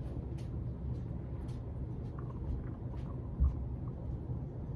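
Puppy chewing on marrowbone dog treats: faint scattered crunches and clicks over a steady low rumble, with one dull thump about three and a half seconds in.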